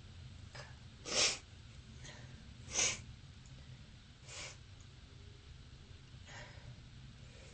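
A person with bronchitis letting out short, sharp bursts of breath through the nose: two loud ones about a second and a half apart, a weaker one a little later and a faint one near the end.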